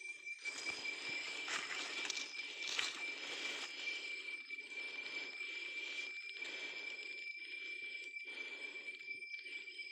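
Night insects singing a steady high-pitched whine, over a lower pulsing chorus that comes and goes. Dry leaves rustle and crackle during the first few seconds as a dead rat is lifted from the leaf litter by hand.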